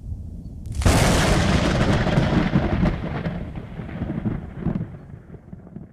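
Outro sound effect: a low rumble, then a sudden loud crash about a second in that rolls away slowly over the next few seconds, like a thunderclap.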